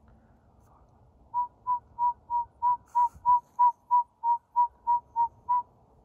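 Northern saw-whet owl singing its advertising song: a steady series of fourteen short, whistled toots on one pitch, about three a second, starting about a second and a half in.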